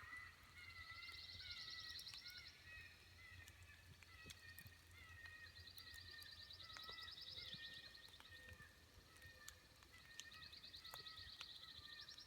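Faint, high-pitched rapid trill from an unidentified animal, about two seconds long and repeated three times some four to five seconds apart, with fainter wavering chirps underneath.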